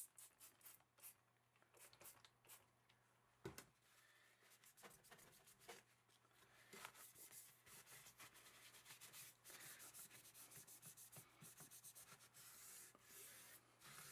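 Faint rubbing of a cloth rag wiping down a rifle's flat dark earth handguard, with a few light clicks and a soft knock about three and a half seconds in, and the wiping growing steadier and more continuous after about six seconds.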